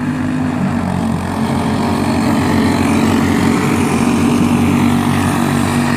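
Small racing engines running, a steady motor sound that gets a little louder from about two seconds in.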